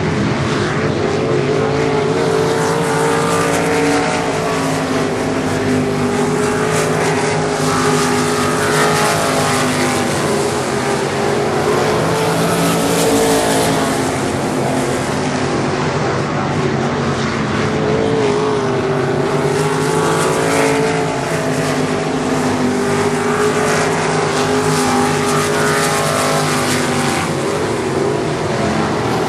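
IMCA 305 sprint cars' 305-cubic-inch V8 engines racing on a dirt oval, loud and continuous. Their pitch rises and falls again and again as they accelerate down the straights and lift for the turns.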